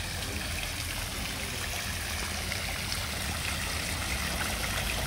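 Two-tiered outdoor water fountain splashing steadily as water falls from its upper bowls into the wide basin, with a steady low rumble underneath.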